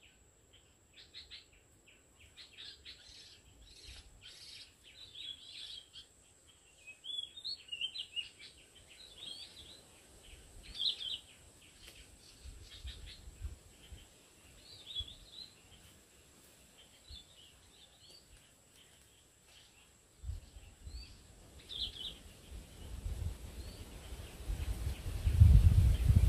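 Oriental magpie-robins giving short, high chirps and call notes, scattered with pauses between them. A low rumble comes in about two-thirds of the way through and is loudest near the end.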